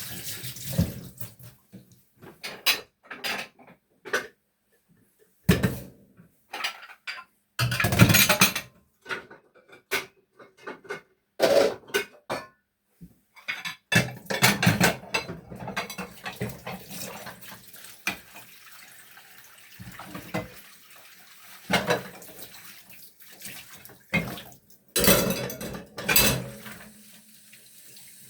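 Dishes, pans and cutlery clattering and knocking together in a sink as they are washed up by hand, with water running from a tap underneath for much of the time.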